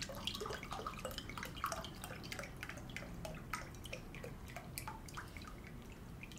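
Faint, irregular drips of liquid: small plinks, several a second, each a short falling tone.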